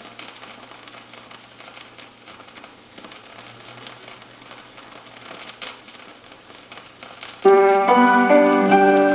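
Faint hiss with a few scattered clicks and a steady low hum in the pause between songs. Then, near the end, a piano comes in loudly, playing the opening notes of the next gospel song.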